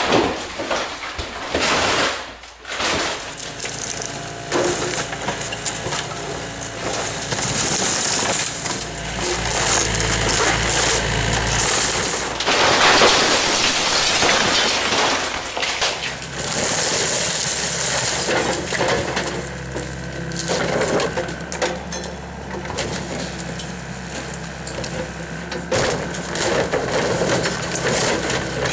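Excavator tearing down a wood-frame house: timber splintering and cracking, debris crashing and breaking in repeated surges, with the excavator's diesel engine running underneath.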